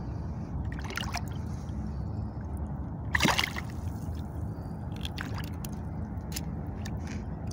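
Water splashing and sloshing as a snook held by a lip gripper is released beside a kayak, with a few short splashes and the loudest about three seconds in. A steady low rumble lies underneath.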